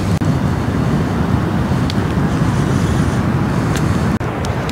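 Wind buffeting the microphone as a steady low rumble, with a few sharp crackles from a small wood fire in a portable fire pit. The noise drops out for an instant near the end.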